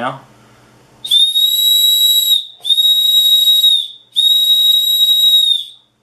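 The whistle built into the Leatherman Signal's ferrocerium rod, blown in three blasts of a little over a second each. Each blast is one steady, shrill, high note, pretty loud.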